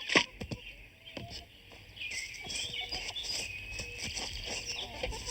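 A sudden sharp falling sweep about a fraction of a second in, a few clicks, then birds chirping for the last few seconds.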